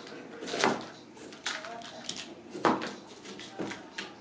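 Ragdoll kittens scrambling in and batting at a cardboard box: a series of sharp knocks and scrapes on cardboard, the loudest about half a second in and again near the three-second mark.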